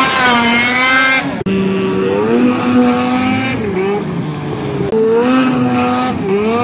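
Snowmobile engine running at high revs as the sled skims across open water, its note rising and dipping in pitch. There is a sudden break about a second and a half in.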